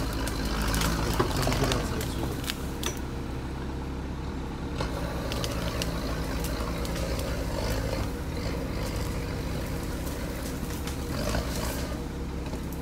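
Sherp all-terrain vehicle's diesel engine running steadily as it forces its way through dense undergrowth, with many sharp cracks and snaps of branches and twigs breaking against it.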